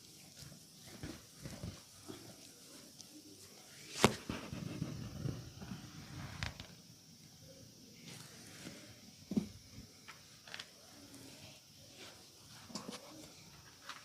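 Hands working over a person's body during a massage session, with one sharp, loud snap about four seconds in, then a couple of seconds of rustling, and a few softer clicks later on.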